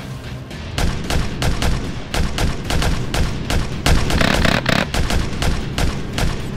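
Paintball markers firing in quick, irregular volleys, several sharp shots a second from more than one gun.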